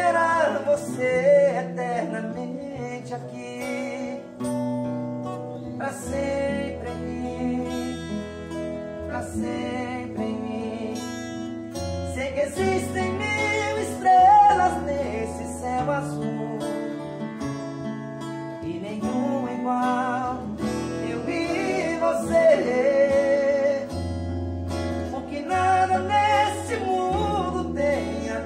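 Acoustic guitars strummed and picked in an unamplified jam, with men singing a slow romantic song over them.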